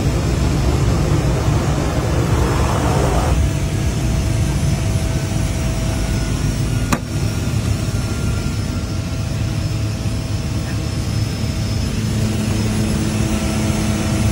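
Floatplane's propeller engine running steadily through a landing run on the water, with a rush of water spray from the floats for the first three seconds or so that stops abruptly. A single sharp click about seven seconds in.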